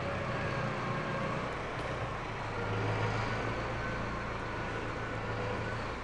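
Tractor engine running steadily as it moves a loaded trailer into position, growing a little louder about halfway through.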